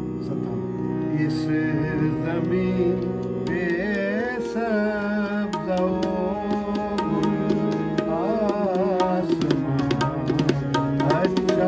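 Harmonium and tabla playing. After a few seconds of steady held harmonium chords, a man's voice sings a wavering melodic line, and the tabla strokes grow busier toward the end.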